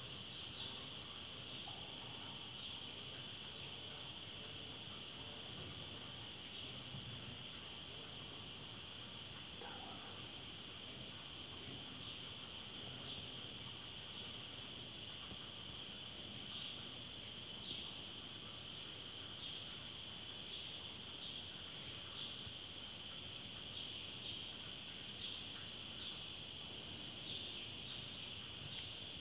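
Steady, high-pitched insect chorus, unbroken throughout, with faint short chirps now and then.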